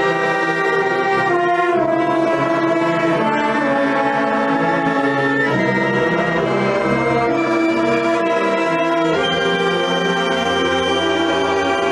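Marching band playing slowly in long, held chords, brass to the fore, the whole band moving to a new chord every few seconds.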